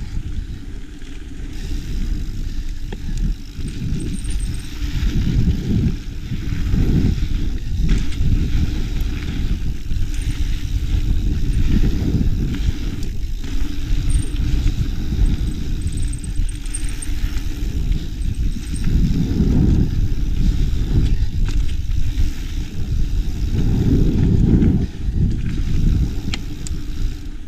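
Mountain bike rolling over a dirt trail, with heavy wind buffeting on the action-camera microphone and knocks and rattles from the bike over bumps. Faint brief high squeals come a few times, the brakes squeaking as the rider slows.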